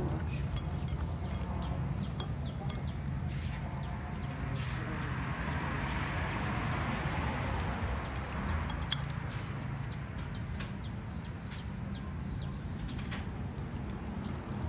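Soft wet squelching of raw fish pieces being rubbed with seasoning by hand in a bowl. Many short high chirps repeat in the background over a steady low hum.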